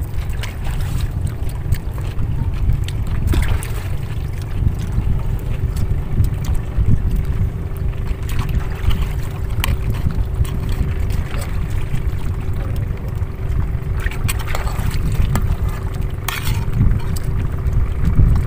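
Wind buffeting the microphone, a steady low rumble, with a faint steady hum underneath and a few light clicks.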